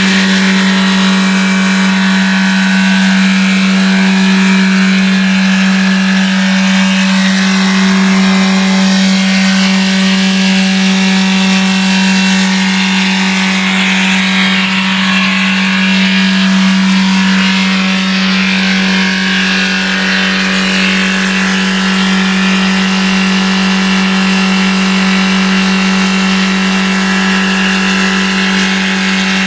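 Volkswagen Golf diesel engine in a runaway after a turbo failure. It runs flat out at a high, unwavering pitch with no let-up.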